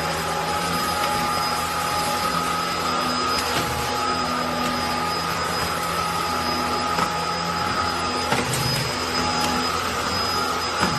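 Eureka Flash corded stick vacuum cleaner running steadily, a high whine over a rush of air.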